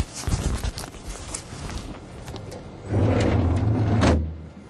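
Boeing X-32A cockpit canopy being lowered: scattered knocks and rattles, then about three seconds in a loud steady mechanical hum for about a second, which cuts off as the canopy comes down.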